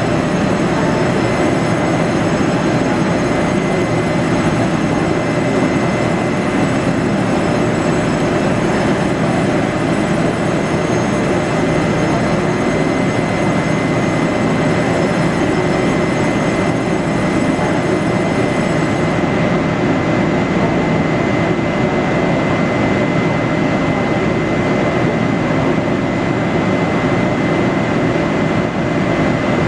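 GE E42C (TRA E200-class) electric locomotive standing with its equipment running: a steady hum and whir of blowers with a fixed whine. A faint higher whine drops out about two-thirds of the way through.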